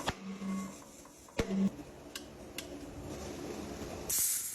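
Tyre-repair work: a few sharp clicks and knocks of tools, two short low hums early on, and a loud burst of hiss about four seconds in.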